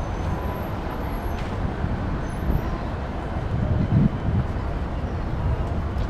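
Steady road traffic noise: a low rumble of passing cars.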